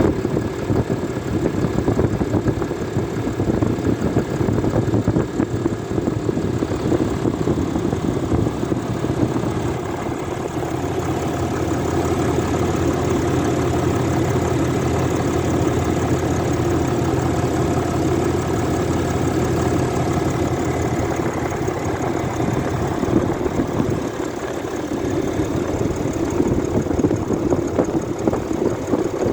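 Cummins 6.7-litre inline-six turbo diesel of a 2023 Ram 3500 idling steadily, running normally with no fault.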